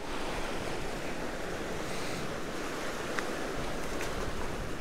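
Surf washing steadily against the rocks of a jetty.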